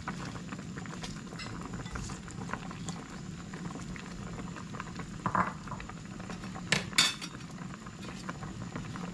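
Pot of tinola fish soup boiling with a steady bubbling, with a short burst about five seconds in and two sharp clinks a second or so later.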